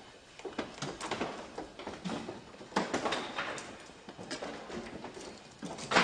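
Irregular knocks and clattering, with a louder bang about three seconds in and another near the end.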